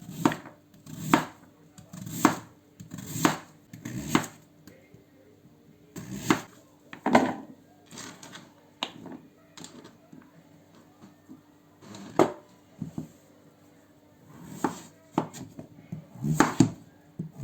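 Knife chopping food on a cutting board: sharp knocks about once a second in short runs, with a pause of a few seconds in the middle.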